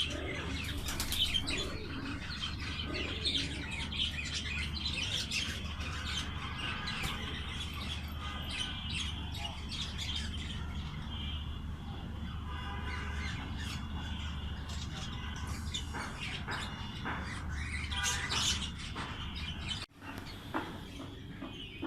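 Many birds chirping and calling over one another in a dense, continuous chorus, over a steady low hum; the sound drops out briefly near the end.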